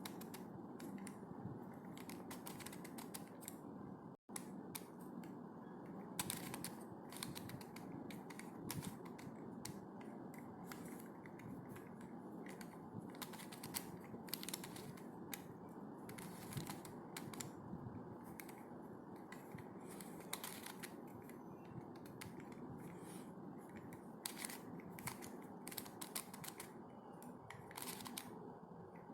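Plastic pieces of a corner-cut helicopter cube clicking and rattling as it is twisted, move after move, in irregular clicks.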